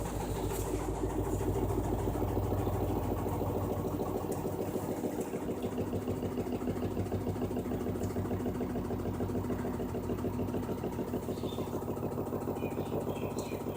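LG washing machine running: a steady mechanical hum with a fast, even pulsing. The deepest part of the hum drops away about four seconds in.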